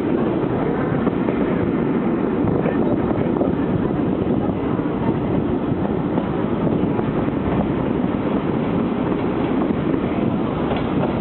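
Steady running noise of a train heard from on board, with wind buffeting the microphone.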